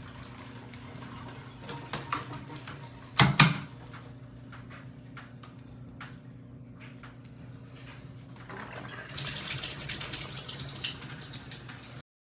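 Shower water turned off: scattered drips and small knocks over a steady low hum, with one loud knock a little past three seconds in. Water sprays again from about eight and a half seconds, then the sound cuts off abruptly.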